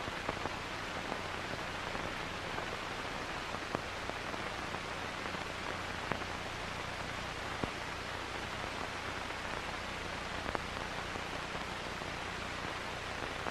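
Steady recording hiss with a faint low hum and a few scattered faint clicks: the background noise of an old film soundtrack.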